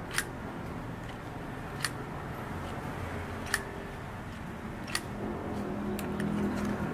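Sharp plastic clicks, four of them about a second and a half apart, from a hand-held lollipop-holder toy as its hinged arm is worked, over a steady low background hum. A low steady hum, like a passing engine, grows near the end.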